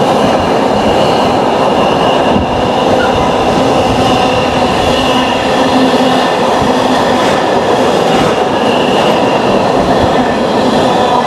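Container freight train wagons rolling past on the rails, a loud steady rush of wheel noise with a faint high ringing that comes and goes.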